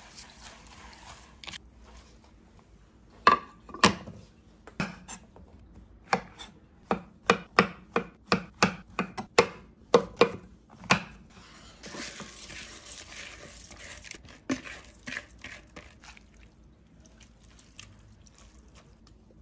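Kitchen knife slicing shiitake mushrooms on a wooden cutting board: about fifteen sharp knocks of the blade hitting the board, one or two a second, over roughly eight seconds. It opens with a brief rustle of grain being rubbed and washed by hand in a bowl.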